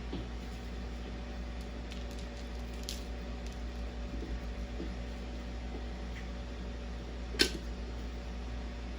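Microwave oven running with a steady hum, and one sharp click about seven seconds in.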